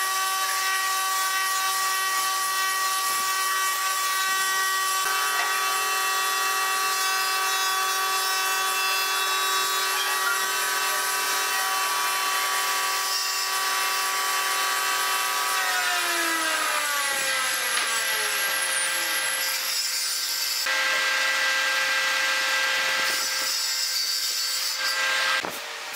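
An electric power tool's motor running with a steady whine, then switched off about sixteen seconds in and winding down, its pitch falling over a few seconds. A couple of seconds of hiss follow later.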